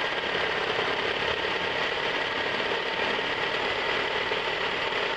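1997 Toyota RAV4's four-cylinder engine idling roughly with a steady, fast, uneven chug. The owner believes the rough idle comes from cylinder number 2 not firing at all.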